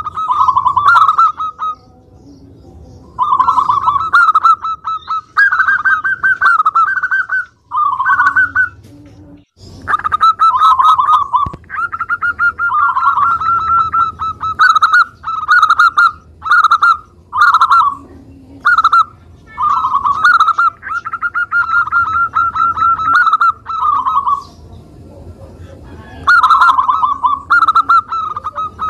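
Zebra dove (local Indonesian perkutut) singing its cooing song: one rapid, trilled phrase after another, each about one to two seconds long, with short pauses between them.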